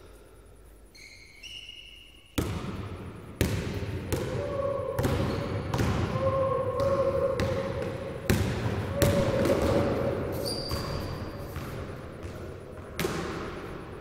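Basketball bouncing on a hard gym floor, dribbled with sharp bounces about once a second that echo around a large hall, starting about two seconds in. Short squeaks, with some longer pitched squeals in the middle, sound among the bounces.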